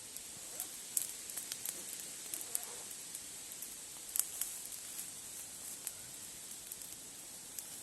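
Campfire crackling: irregular sharp pops and snaps over a steady hiss, with the loudest pops about a second in and about four seconds in.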